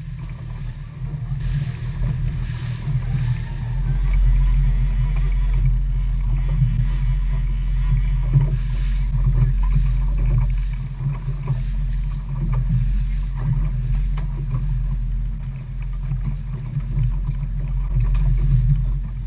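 A 250-horsepower outboard motor running steadily as the boat trolls, heard as a loud, deep drone mixed with water and wind noise. The lowest rumble grows louder about four seconds in.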